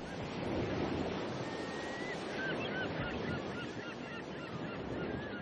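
Sea surf with a steady rush of waves and a scatter of short, high seabird cries over it.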